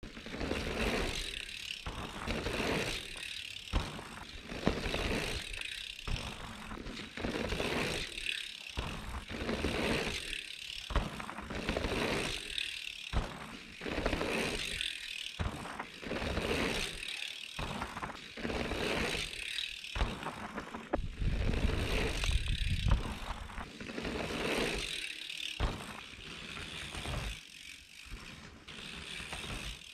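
Mountain bike riding on a dirt trail, its rear hub ratcheting in spells of a second or two as the rider coasts, with wind rumbling on the microphone.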